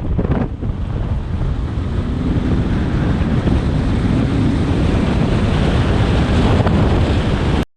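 Heavy wind buffeting the camera microphone, a dense low rumble that cuts off suddenly at the end.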